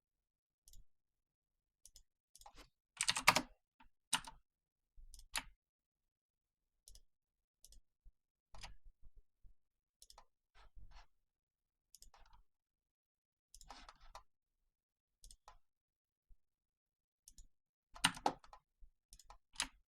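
Scattered clicks of a computer mouse and keyboard keys as dimensions are entered in CAD software, with silence between them and a few short, louder runs of clicks.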